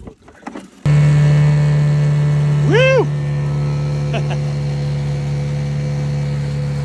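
Outboard motor on a small boat under way, running steadily, cutting in suddenly about a second in after a few soft splashes and knocks. A brief call that rises and falls in pitch sounds over the engine about three seconds in.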